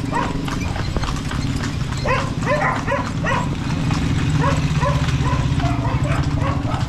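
Kalesa horse's hooves clip-clopping on the street in a quick, uneven rhythm, over a steady low rumble.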